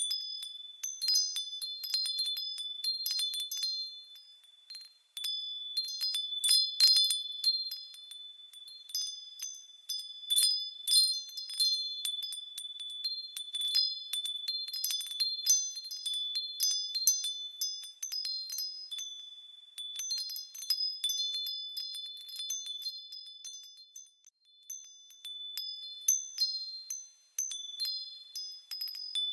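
High-pitched wind chimes ringing, struck in irregular overlapping clusters as they sway, with a few short lulls.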